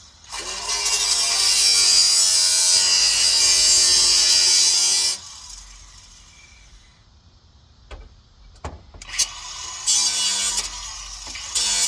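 A power tool cutting for about five seconds, then a pause with two sharp clicks, then the tool running and cutting again.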